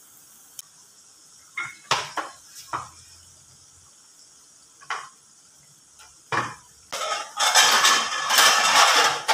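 Metal kitchen utensils clink and tap against a frying pan of hot oil several times while empanadas fry in it, with a faint frying sizzle underneath. Near the end a loud rushing hiss lasts about two seconds.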